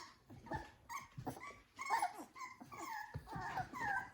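Six-week-old American Bully puppy whining in a quick series of short, high calls, several sliding down in pitch.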